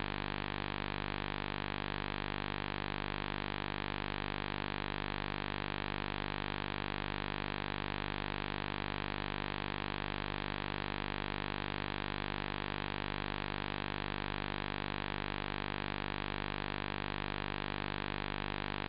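Steady hiss with a low electrical hum underneath, unchanging throughout: the noise of a recording chain with no programme sound on it.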